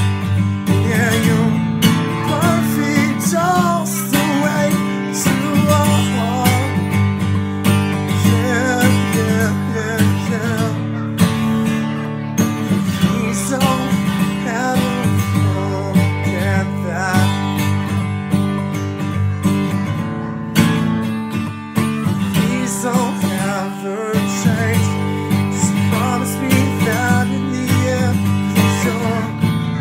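Acoustic guitar strummed steadily through a song's chords, with a wavering melody line above them.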